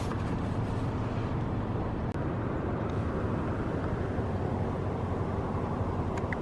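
Steady engine and road noise inside a moving car, an even low rumble.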